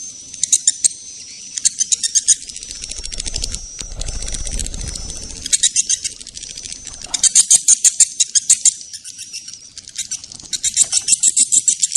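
Swiftlet courtship calls: bursts of rapid, high-pitched chittering trills, about six of them, over a thin high steady tone. A low rumble swells in the middle.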